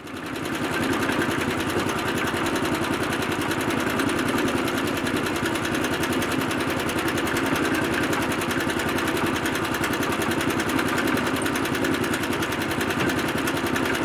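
Cement mixer truck's diesel engine running steadily with a fast, even throb, fading in over the first second.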